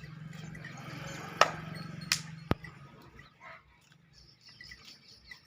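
Three sharp knocks: the first, about a second and a half in, is the loudest; the other two follow quickly. They sound over a low steady hum that stops about two and a half seconds in.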